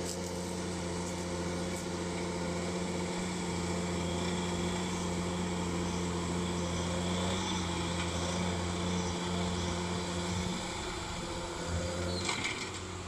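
John Deere 7830 tractor's six-cylinder diesel engine running steadily under load while pulling a five-shank ripper through dry soil, heard from across the field. A brief clatter sounds near the end.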